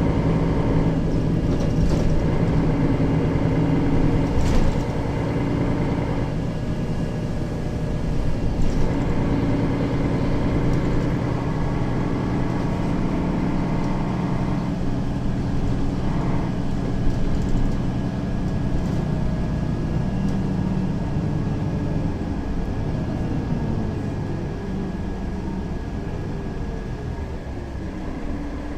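Interior of a Mercedes-Benz Citaro facelift city bus on the move: a steady mix of engine and road noise, with the engine pitch sliding down over the last several seconds and the sound growing a little quieter near the end.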